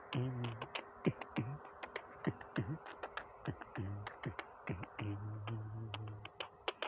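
Beatboxing imitating DJ dance music: a steady beat of kick-drum thumps that drop in pitch, sharp clicks between them, and held low hummed bass notes.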